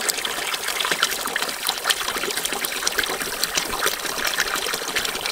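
Pond water pumped through a ribbed hose, pouring out of the hose end into a bath of water: a steady splashing, trickling flow.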